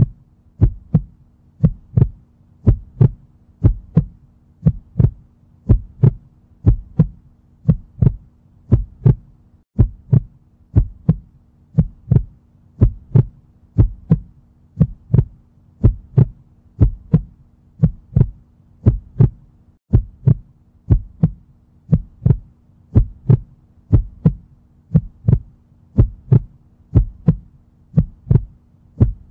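Heartbeat sound effect: a steady lub-dub double thump about once a second, over a faint low steady hum.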